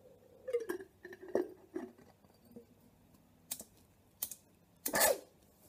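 Small glass jar and its metal lid being handled and set down on a concrete floor: a series of knocks and glassy clinks, a few with a brief ring. About five seconds in comes one louder, longer burst that falls in pitch.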